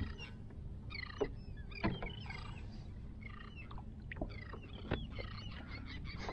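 Water lapping against a plastic fishing kayak's hull, with a few light knocks. Over it come many short, high calls that rise and fall, several a second.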